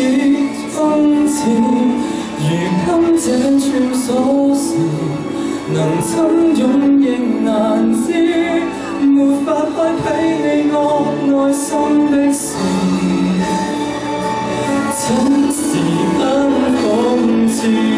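A man singing a song into a handheld microphone, amplified over instrumental accompaniment.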